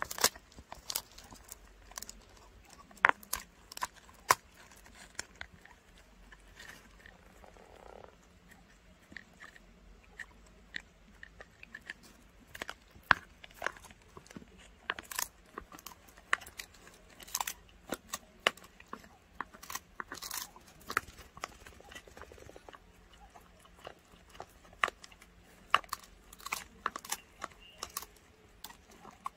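Dog chewing a dried pig ear: irregular sharp crunching bites, thinning out for several seconds before picking up again.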